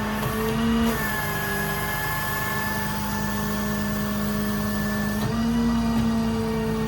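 Service truck's diesel engine and crane hydraulics running with a steady hum and whine; the pitch steps up and the sound gets louder for a moment about a second in, and again from about five seconds in, as a crane function is worked under hydraulic load.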